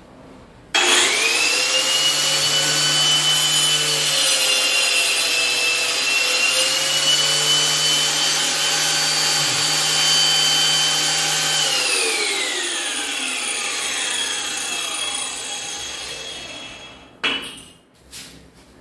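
Angle grinder switched on and running with a steady high whine for about eleven seconds. It is then switched off, and the whine falls steadily in pitch as the disc spins down.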